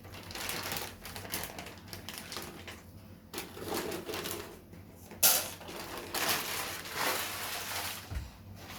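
Kitchen handling sounds: irregular clatter, rustling and knocks of cookware and food being moved about, with one sharp knock about five seconds in.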